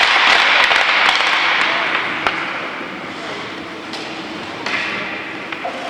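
Ice hockey play on a rink: skate blades scraping the ice and sticks and puck clacking, the scraping fading away over the first two seconds, then a single sharp knock and a few fainter ones.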